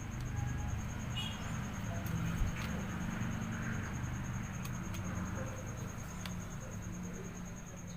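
Faint scattered clicks and taps of parts being handled, over a steady low hum and a thin high whine in the background.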